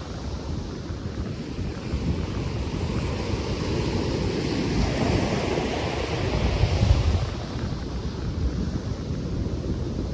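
Ocean waves breaking and washing onto the shore, swelling to a peak about seven seconds in, with wind gusting on the microphone.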